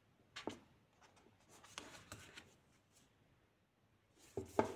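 Paperback book being handled: pages and cover rustling and tapping as it is closed and turned over, with a louder cluster of taps near the end.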